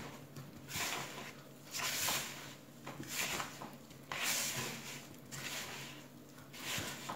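A hand squeezing and rubbing soft butter with icing sugar in a plastic bowl: soft squishing and rustling strokes about once a second, as the butter and sugar are worked together into a dough.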